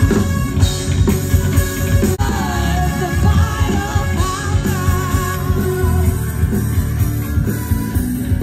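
Loud rock music with a strong bass beat, and a singing voice coming in about two seconds in.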